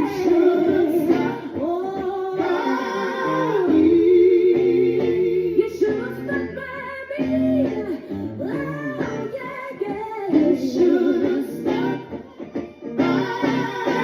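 A singer's voice with vibrato over a live band, with guitar and a steady bass line: a song being played through at a sound check.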